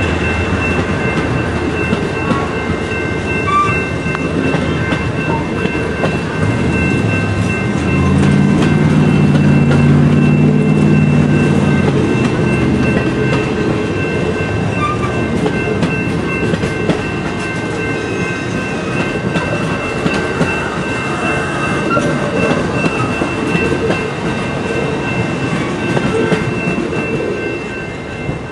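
Amtrak Superliner bi-level passenger cars rolling slowly past, wheels clacking over rail joints with a steady high ringing from the wheels on the rail, fading near the end as the last car clears.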